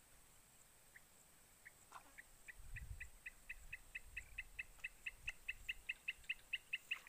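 A bird calling: a run of short, clipped two-pitched notes, a few spaced ones at first, then an even rapid series of about five a second from about two and a half seconds in. A faint low rumble sits under it for a couple of seconds in the middle.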